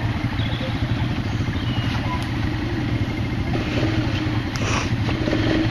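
Quad bike engine running at low revs as it pulls the machine over a rock, the revs picking up a little near the end. A brief knock sounds about four and a half seconds in.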